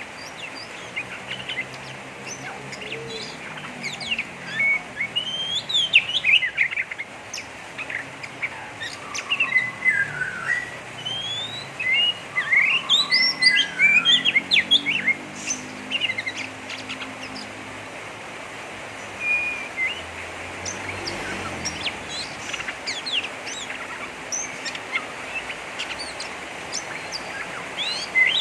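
Oriental magpie-robin (kacer) giving its harsh, rapid 'ngeriwik' chatter: dense clusters of quick chirps and sweeping notes with short pauses between them.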